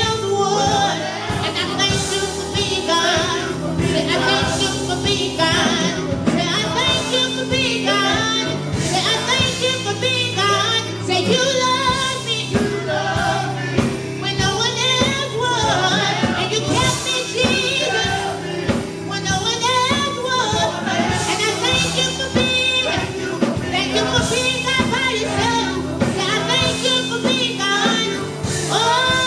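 Gospel worship song: voices singing over a sustained music accompaniment.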